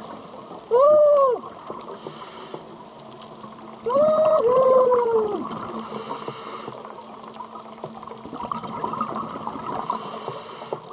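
Underwater sound: a scuba regulator's exhaust bubbles hiss out in short bursts about every four seconds over a steady background wash. It is joined by two loud squealing calls that rise and then fall in pitch, one about a second in and a longer one about four seconds in.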